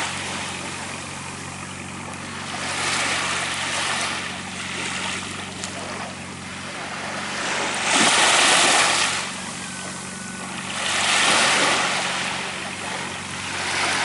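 Small waves washing up and running back on a sandy beach, swelling and fading every few seconds with the loudest wash about eight seconds in, over a steady low hum of a distant boat engine.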